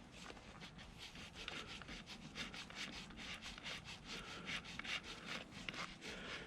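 Faint, quick scratchy rubbing clicks, several a second, as a motorcycle speedometer cable's threaded end nut is turned by hand onto the back of the speedometer.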